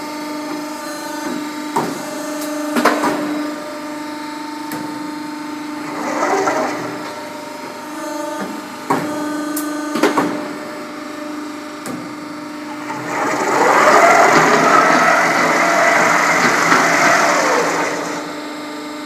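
Hydraulic ironworker with a CNC punching unit: the hydraulic pump hums steadily while the punch strikes through steel plate in a few sharp metallic bangs. Near the end comes a louder stretch of mechanical noise as the CNC feeding machine moves the plate.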